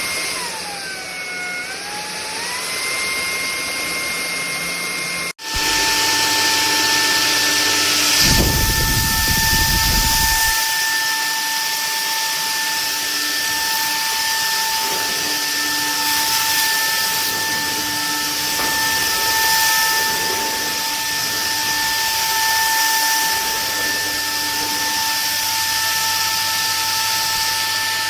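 Bulelink cordless stick vacuum running with a steady high motor whine. Early on the pitch briefly sags and recovers, as when the motor is loaded. After an abrupt break it carries on at a steady, slightly lower pitch, with a low rumble for about two seconds.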